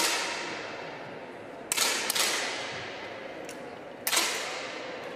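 10 m air pistols firing in a large hall: a shot at the start, two close together just under two seconds in, and another about four seconds in. Each is a sharp crack with a long echo that fades away.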